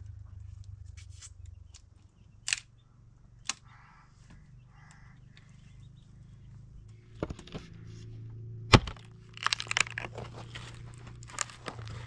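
Axe chopping a dead, weathered tree stump: a few sharp, well-spaced blows, the loudest about nine seconds in, followed by a quick run of cracking and splintering wood.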